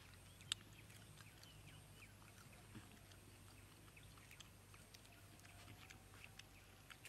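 Near silence, with faint scattered small clicks and one sharp click about half a second in.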